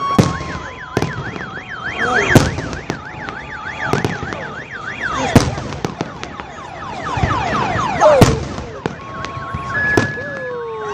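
A fireworks display: sharp bangs of bursting shells every second or two, with a cluster of falling whistles about two-thirds of the way through. A car alarm, set going by the blasts, warbles rapidly up and down through the first half, then switches to alternating two-tone beeps near the end.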